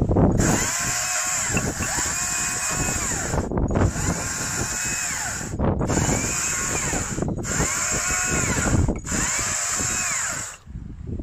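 Stihl MSA 200 C battery chainsaw cutting through a log: the electric motor and chain whine, rising and falling in pitch as the chain bites into the wood. It runs in several stretches broken by abrupt gaps and stops shortly before the end.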